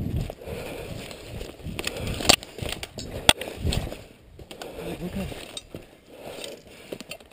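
Footsteps crunching through dry leaves and twigs on a woodland floor, with several sharp cracks, the two loudest about two and three seconds in.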